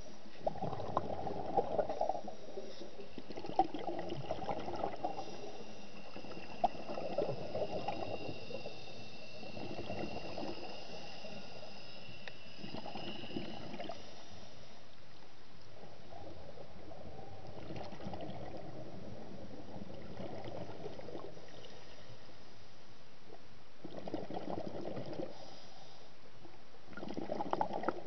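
A scuba diver's exhaled bubbles from the regulator, heard underwater: bubbling swells every few seconds over a steady low hiss.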